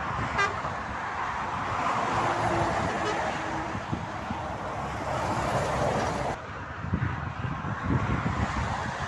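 Motorway traffic passing, with tyre and engine noise swelling and fading as vehicles go by, and a brief horn toot about half a second in.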